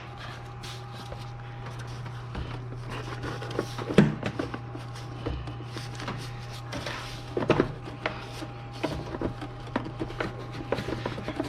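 Plastic engine-bay parts being handled and fitted by hand: scattered clicks and knocks, the loudest about four seconds in and again at about seven and a half seconds, over a steady low hum.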